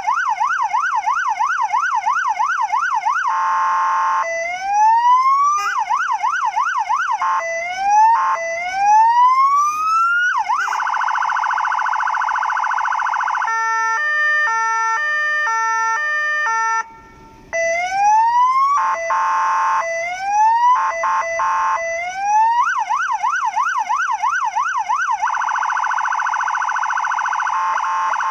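Electronic siren on a fire brigade light rescue truck cycling through its warning tones: a fast yelp, short rising whoops, a steady buzzing tone and a stepped multi-tone pattern, breaking off for a moment before returning to the fast yelp.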